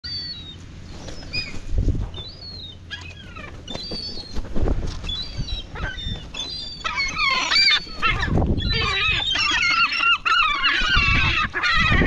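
Herring gulls calling: a few scattered calls at first, then from about seven seconds a dense clamour of many gulls calling over one another as the flock descends on food, with wings flapping and a few low thumps.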